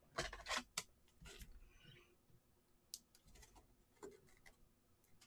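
Faint rustling and a few light clicks of glossy trading cards being handled and set down on a table, mostly in the first second, with single ticks about three and four seconds in.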